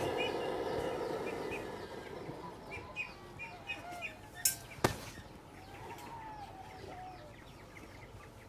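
Small birds chirping repeatedly in the background, with a steady noise that fades away over the first couple of seconds. Two sharp clicks come close together about halfway through.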